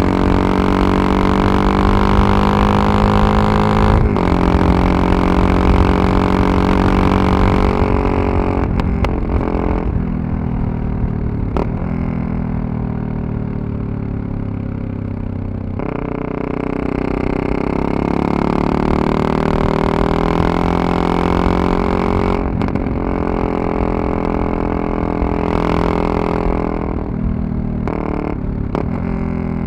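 Yamaha MT-03 660's single-cylinder engine and exhaust pulling steadily at riding speed. The engine note eases off in the middle and picks up again a little past halfway, with a few brief knocks along the way.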